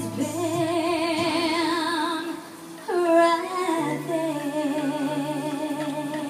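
A woman singing a slow song into a microphone over backing music, holding long notes with a wide vibrato. About two and a half seconds in she breaks briefly, then comes in on a higher note that slides down into more held notes.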